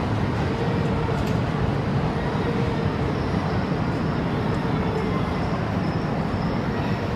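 Tohoku Shinkansen train moving along the station platform: a steady, even running noise with a faint hum.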